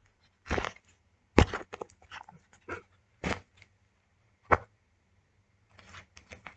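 Homemade tape-and-cardboard fidget toy being pressed and squeezed by hand, giving short crisp crackles and crinkles in an uneven series, with a pause of about a second near the end.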